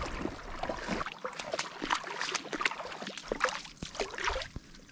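Feet wading through ankle-deep water, with irregular small splashes and sloshing at each step.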